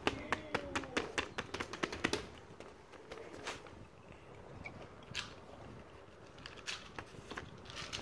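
Toys being handled and swapped on a bed: a quick run of sharp clicks for about two seconds, then a few scattered clicks and taps.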